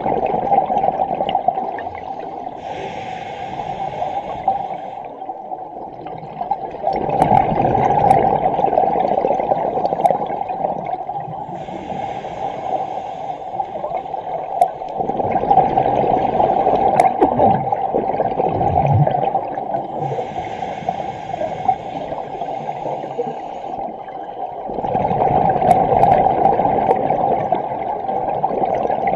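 Scuba diver breathing on a regulator, heard underwater: about three slow breaths, each a hissing inhale followed by a longer, louder rush of exhaled bubbles, with a few faint clicks scattered through.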